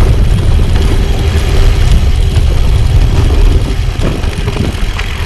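Loud, low rumble of wind buffeting the microphone, mixed with tyre noise as a gravel bike rolls down over bumps. The noise eases a little about four seconds in.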